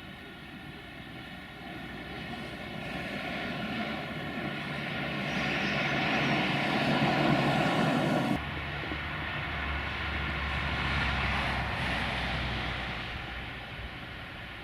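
Freight train's electric locomotive running, a steady hum and whine with several fixed tones that builds in loudness, then drops off suddenly about eight seconds in to a lower hum.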